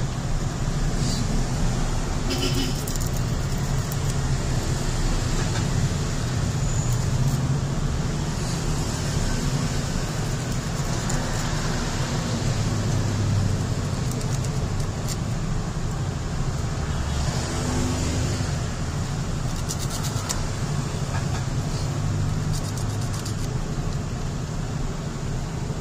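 Steady low rumble of vehicle traffic and engines, with a few faint light clicks of small switch parts being handled.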